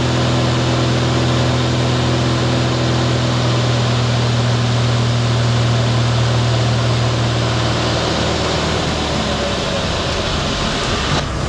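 Cessna's piston engine and propeller droning steadily under a constant rush of air noise in the cockpit. About eight seconds in, the engine note falls away as power is pulled back for the landing.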